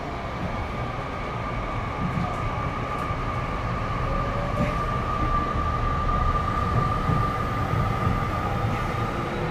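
Tokyu 5050 series electric train heard from inside a car while running: a steady rumble of wheels on track with a steady high whine from the traction motors and inverter, slowly getting louder. The air conditioning is running.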